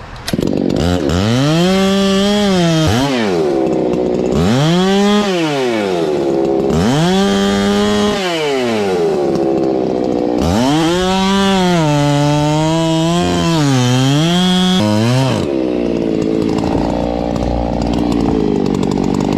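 Chainsaw engine revved up and dropped back to idle three times, then held at high revs with brief dips for about five seconds, and running lower near the end.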